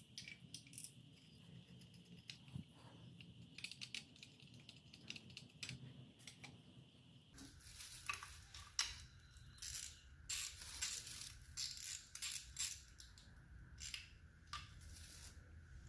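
Faint, scattered clicks and light metallic clinks of a billet timing chain guide and its bolt and washer being handled and fitted to the engine by hand.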